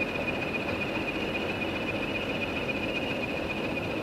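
Diesel locomotives running at idle a short way off: a steady low engine rumble under a constant high whine.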